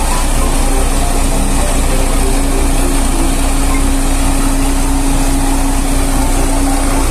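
Sakai SV515D single-drum road roller's diesel engine running steadily as the machine rolls along, a loud even engine noise with a continuous hum through it.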